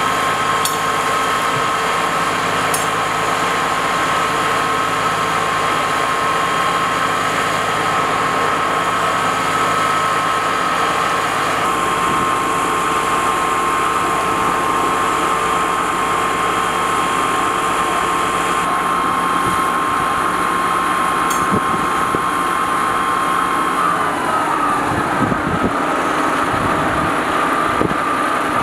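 Fire engine's engine and pump running steadily at raised revs, with a constant high whine. About 24 s in, the whine slides down in pitch as the revs drop.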